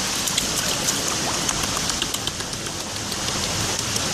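Water dripping and splashing back into a plastic basin as a pufferfish is lifted out of it: a quick run of small patters over a steady hiss, thinning out after about two and a half seconds.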